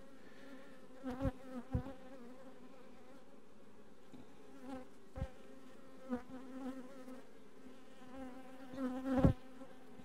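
Honey bees buzzing steadily around an open hive, the buzz swelling briefly several times. A few light knocks of wooden hive frames being handled, the loudest near the end.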